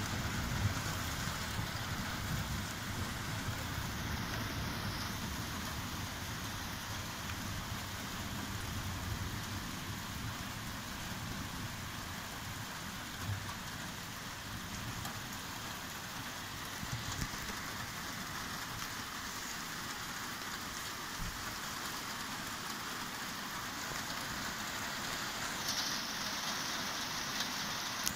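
Steady rain falling during a thunderstorm, with a low rumble in the first several seconds that fades away.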